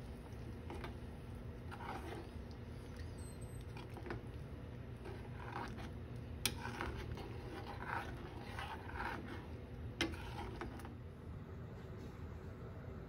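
Metal spoon stirring soup in an aluminium saucepan, scraping against the pan, with two sharp clinks of spoon on metal. A steady low hum lies under it, and the stirring stops near the end.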